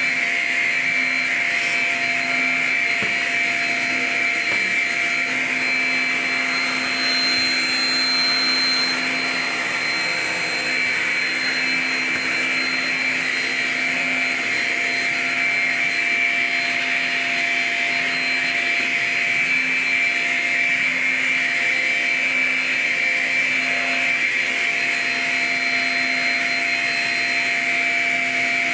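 Shark Rocket self-cleaning stick vacuum running steadily with a high motor whine, as it is pushed over a mat. It is a little louder around the first third.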